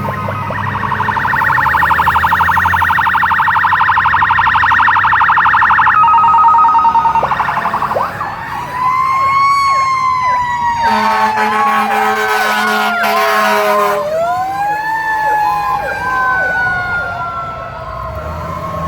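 Fire apparatus electronic sirens sounding on a code 3 response. It opens with a fast warble for about six seconds, then changes to a slow wail that rises and falls twice. A faster yelp and a low steady tone overlap the wail for a few seconds midway.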